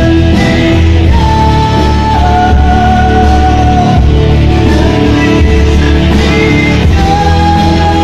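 Loud rock music with guitar, and a singer holding long sung notes through a PA system.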